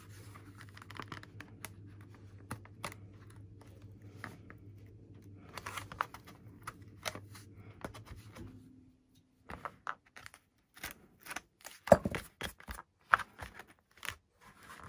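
Scalpel blade cutting into a foam wing, a faint scratchy tearing with scattered small clicks over a low steady hum that stops after about eight seconds. Then a quick run of sharp clicks and taps as a plastic control horn is handled and pressed into the foam.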